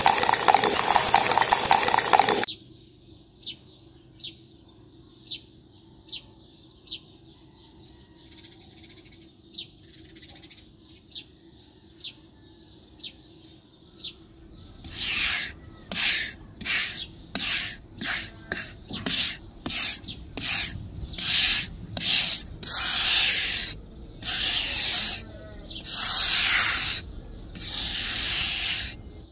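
A loud hiss for about the first two seconds, then short high chirps about once a second, then from about halfway a quick run of short rasping scraping strokes, louder than the chirps.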